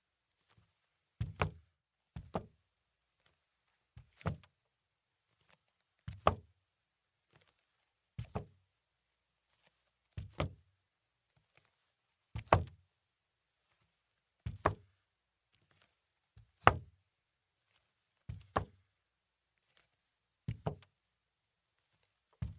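Slow footsteps on a wooden floor, about one step every two seconds, each a quick double knock.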